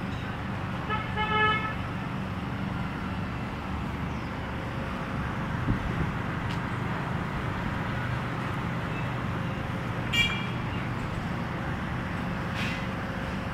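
Steady street traffic rumble, with a vehicle horn tooting briefly about a second in and a short higher-pitched beep about ten seconds in.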